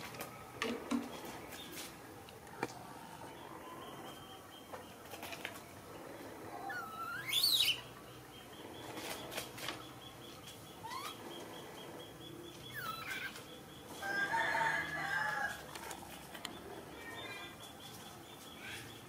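Cloth rustling and soft handling noises as a baby monkey in a towel is dressed, with one sharp rising squeal about halfway through and a few fainter short chirps later.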